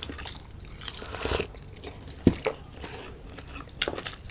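Close-miked eating sounds: irregular chewing and biting, with a few sharp clicks, the loudest a little past halfway.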